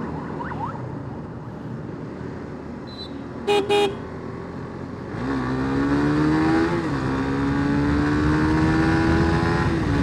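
Wind and road noise, broken about three and a half seconds in by two short, loud horn blasts. From about five seconds in, a Suzuki Gixxer motorcycle engine pulls hard as the bike accelerates: its pitch climbs, dips once near seven seconds as with a gear change, then climbs slowly again.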